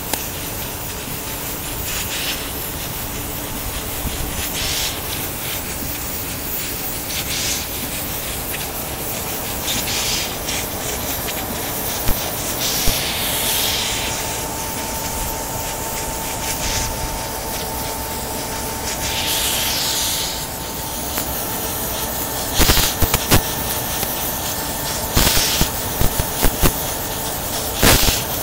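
Steady hiss of an oxy-hydrogen brazing torch flame, with a few sharp short knocks in the last third.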